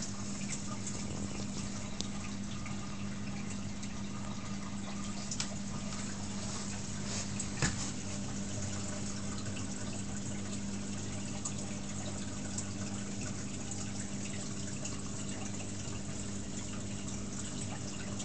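Water trickling and dripping steadily in a nano cube reef aquarium's circulation, over a steady low hum. One sharp click partway through.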